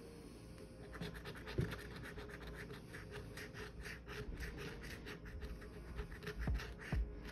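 A coin scratching the coating off a paper scratch-off lottery ticket in quick, rapid strokes, starting about a second in, with a few soft thumps along the way.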